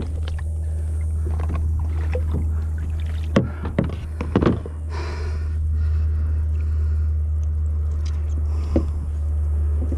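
Handling knocks and rustles of a landing net and a big bass against a plastic kayak, a few sharp knocks spread through, over a steady low rumble. A short swish about five seconds in.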